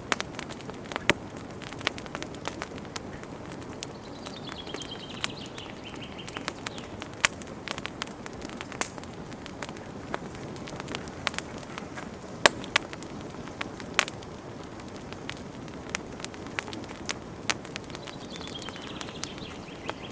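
Wood campfire burning, with a steady low rush of flames and frequent sharp, irregular pops and crackles. A faint high, falling call sounds twice, about four seconds in and near the end.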